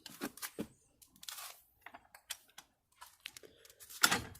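A jack's lever being pumped up and down to push a car's dented roof back up, making irregular clicks and short scraping knocks, with a louder knock about four seconds in.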